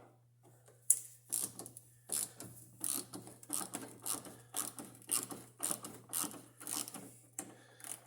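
Hand ratchet with a Torx bit clicking in repeated short strokes, about two to three clicks a second, as the door handle's bolts are loosened.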